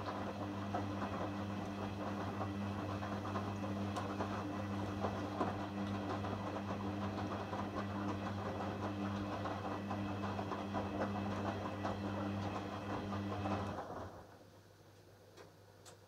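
Hoover Dynamic front-loading washing machine in its second rinse: a steady motor hum as the drum turns the wet laundry through the rinse water, with sloshing and rustling. About fourteen seconds in the motor stops and the drum comes to rest, leaving only faint sounds.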